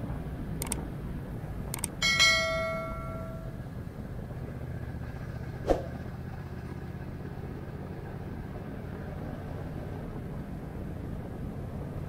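Motorcycle running steadily at road speed, overlaid with a subscribe-button sound effect: two mouse clicks, then a bright bell ding about two seconds in that rings out over a second and a half. Another click comes about six seconds in.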